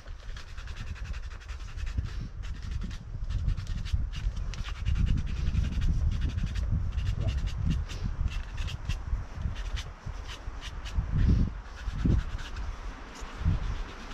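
Scuffs, scrapes and small knocks of a climber's shoes and hands on the rock, over a fluctuating low rumble that swells in places.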